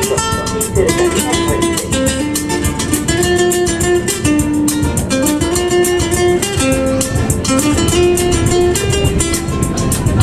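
Live acoustic guitar music: guitars strummed in a quick, steady rhythm under a melody of held notes that step up and down.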